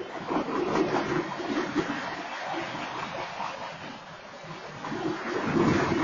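Freight train cars rolling past at a crossing: a steady rumble and clatter of wheels on the rails, swelling louder about five seconds in.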